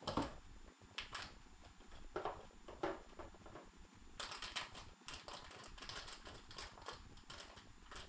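Packaging being handled: a few separate scrapes and rustles, then from about four seconds in a dense run of crinkling from a hard drive's shiny anti-static plastic bag.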